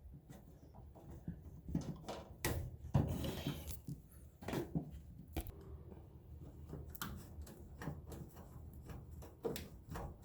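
Hose clamp being worked off a washer drain pump hose: scattered metal clicks and knocks, with a short scraping rub about three seconds in.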